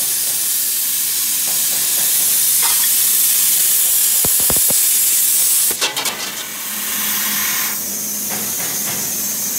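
CNC plasma cutter's torch hissing steadily as its arc cuts through a metal pipe. A little under six seconds in the arc cuts off with a few sharp clicks, and a quieter hiss carries on.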